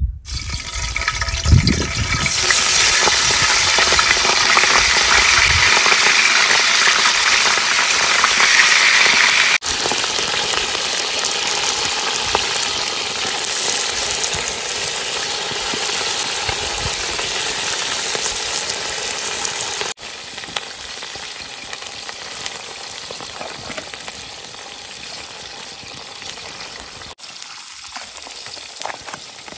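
Steady sizzling hiss from a hot pot on a wood fire as rice and dill are spooned into it. The sizzle drops in level in steps, quietest near the end.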